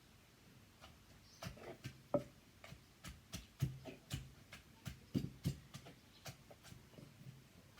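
Pestle and spoon knocking and clicking in a mortar while mixing papaya salad. The knocks are irregular, about two or three a second, and start about a second and a half in.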